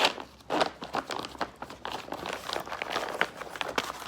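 Thick plastic MRE pouch being torn open and crinkled by hand: a sudden rip at the start, then continuous crackling and rustling of the heavy plastic.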